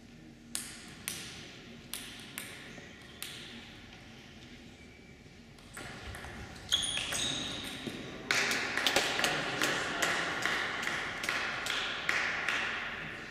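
Table tennis ball bounced five times, about half a second apart, before a serve. About six seconds in, a rally starts: sharp pings of the celluloid ball off the bats and table, quickening to about three hits a second.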